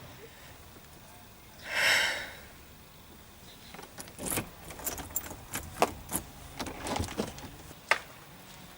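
A short buzz about two seconds in, then a bunch of keys jangling and clicking against a door lock for several seconds, with a few sharp clicks.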